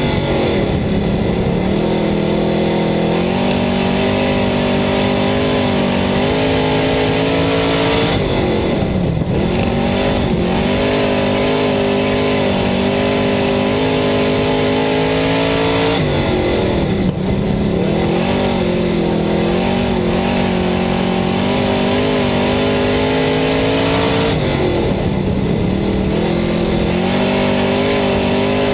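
Sportmod dirt-track race car's V8 engine heard from inside the cockpit, running hard lap after lap. Its pitch falls as the car goes into each turn and climbs back up out of it, about every eight seconds.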